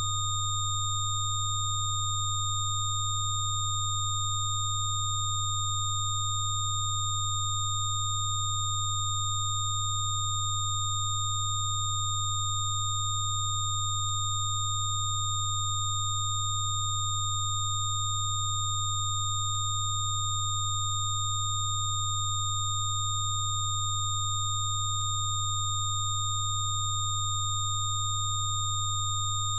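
Steady electronic sine tones of a Rife frequency treatment track, held without change: a loud low hum layered with several fainter, higher pure tones.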